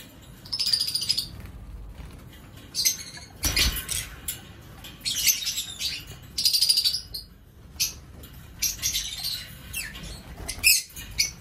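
Pet lovebird giving a string of short, high chirps with gaps between them, along with wing flutters.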